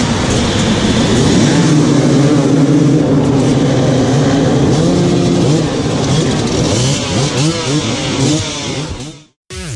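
Many enduro motorcycle engines revving together on a race start line, a dense mass of engine notes rising and falling against each other. It cuts off suddenly near the end.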